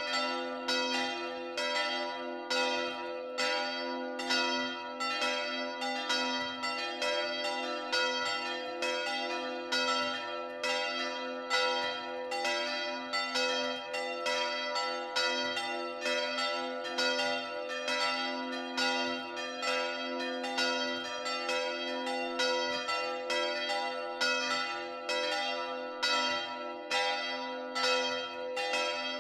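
Church bells ringing in a steady peal: strokes come about twice a second, and their hum rings on under each new stroke.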